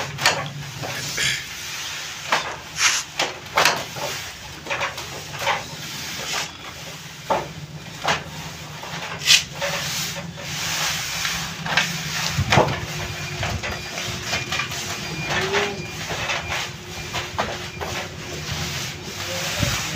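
Gloved hands pulling and folding strands of soan papdi (patisa) sugar-and-flour mass on a plastic sheet: irregular rustling and soft slaps over a steady low hum.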